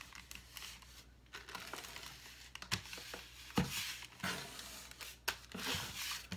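Cellophane crinkling as it is pressed and smoothed by hand onto double-stick tape inside a cardboard box, with hands rubbing on the cardboard and a few light knocks.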